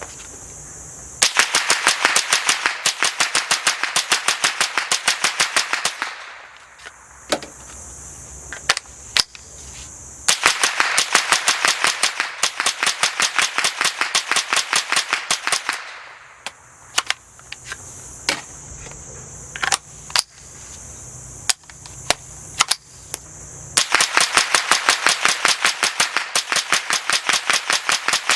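Suppressed Smith & Wesson M&P 15-22 .22 LR rifle firing in three long, rapid strings of shots, with single shots between the strings. The rifle is cycling without stoppages at around 650 rounds since it was last cleaned or lubricated.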